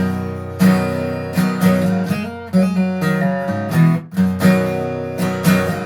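Acoustic guitar strummed in a steady rhythm, chords ringing between the strums, in an instrumental break between sung lines.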